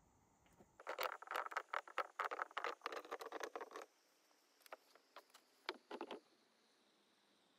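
Dry brush and loose stones crackling and crunching as a man moves among rocks and reaches into a crevice by hand. There is a dense run of crackles for about three seconds, then a few scattered snaps.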